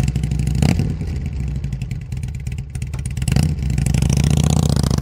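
Motorcycle engine running with fast, even firing pulses, blipped briefly about half a second in, then revved up past three seconds and held at higher speed.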